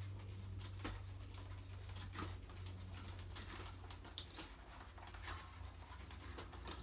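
Faint handling noises of a bicycle wheel being worked by hand: light clicks and rubbing of fingers on the tyre and rim, over a steady low hum.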